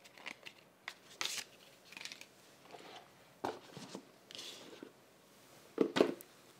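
Hands handling the iPhone paperwork card and Apple sticker sheet: light paper rustling and small clicks of card. A couple of louder knocks come about six seconds in, as the phone box and phone are moved on the tabletop.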